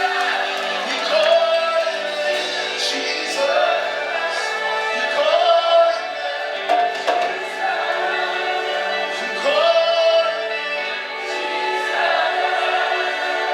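Gospel music with a choir singing long held notes over a steady accompaniment.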